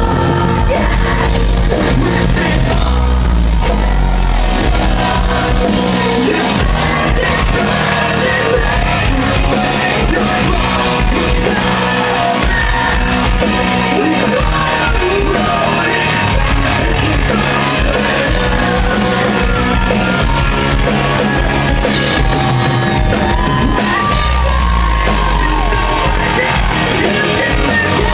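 Live rock band playing loud, with a singer's shouted and sung vocals over heavy bass, guitars and drums, echoing in a large hall. The sound is muddy and clipped of its highs, as recorded from the crowd.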